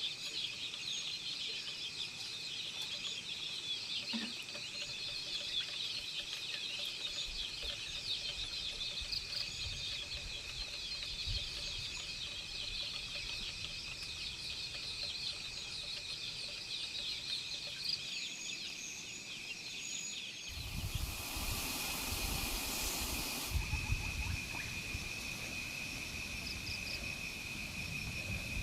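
Rural ambience: chickens clucking and cheeping over a steady, high insect drone. A burst of rustling noise lasts about three seconds near the end.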